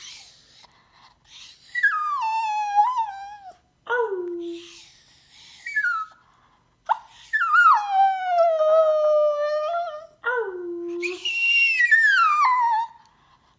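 Small Chinese Crested–poodle mix dog howling: several drawn-out howls that slide down in pitch and level off, with short lower notes between them.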